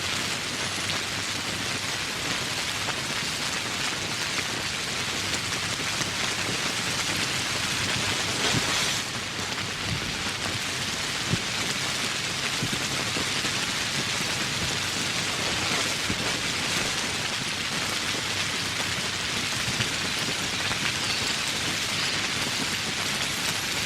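Steady rain falling as an even hiss, swelling briefly about eight seconds in, with a few sharper drop hits.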